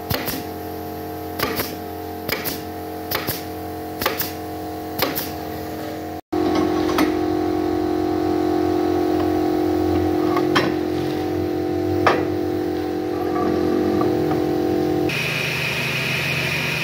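Pneumatic brad nailer firing nails into softwood door boards, about a dozen sharp shots in the first six seconds over a steady hum. After that come a steady hum and a couple of clicks, and near the end a hissing sound sets in as the table saw comes into use.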